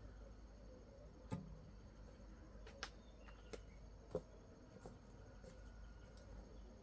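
Near silence, broken by about five faint, scattered clicks and knocks.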